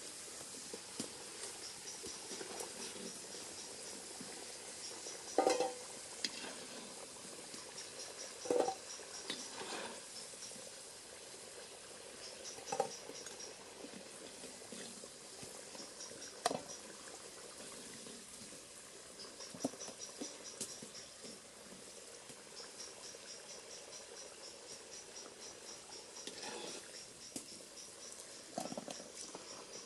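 Potato slices deep-frying in oil in a cast iron kazan, a steady sizzle, broken by several sharp clanks of a metal skimmer against the pot as the pieces are turned and lifted out. Crickets chirp in short high trills throughout.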